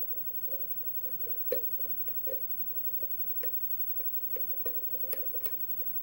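Steel hook pick working the pins inside an Ilco Den Brass pin-tumbler lock cylinder under a tension wrench, making irregular small clicks and ticks as it lifts and taps the pins. The loudest click comes about a second and a half in.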